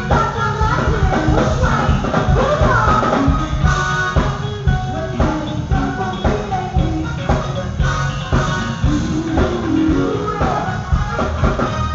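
Live band music: a woman singing lead into a microphone over electric guitar, bass guitar and a drum kit keeping a steady beat.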